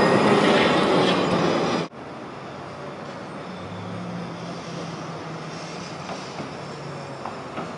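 Tram passing close by, loud wheel-on-rail running noise that cuts off abruptly about two seconds in; then a quieter tram approaching slowly over curved track junctions, with a faint steady low hum and a few light clicks near the end.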